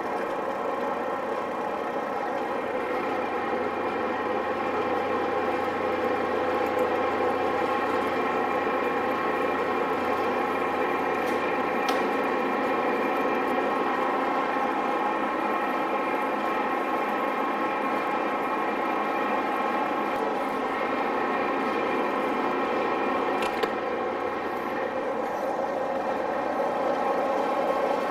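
Radial arm drill running as a large twist drill bores through a metal block: a steady, even gear-and-motor whine from the drill head. A low hum under it drops out with a click about halfway through.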